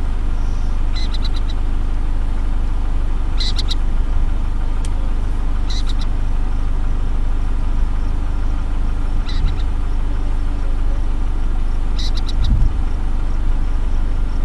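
Short, quick chattering calls from burrowing owls, each a rapid cluster of high notes, repeated about every two to three seconds over the steady low hum of a car engine idling.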